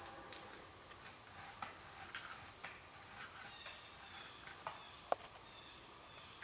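Faint scattered snaps and ticks, the sharpest one about five seconds in, with a thin high whistle faintly present from about the middle on.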